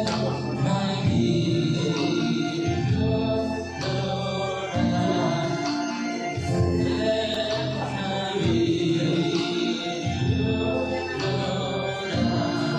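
Music with sustained singing, choir-like voices holding chords that change every second or two.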